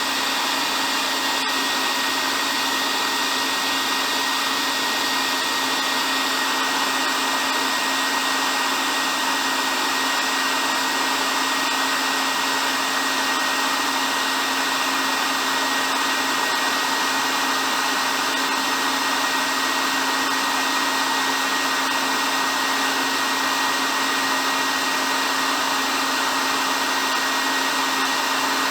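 Hair dryer running steadily: an even whoosh of airflow over a constant motor hum with a thin high whine, unchanging throughout.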